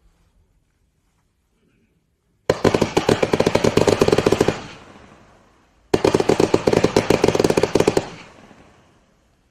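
King Fireworks 379-shot compact firework cake firing two rapid volleys of shots, each lasting about two seconds and fading away after it; the first starts about two and a half seconds in, the second about six seconds in.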